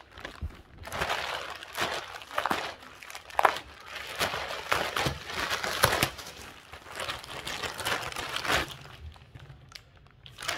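Plastic courier mailer bag crinkling and rustling as it is torn open by hand, in irregular bursts that die down near the end.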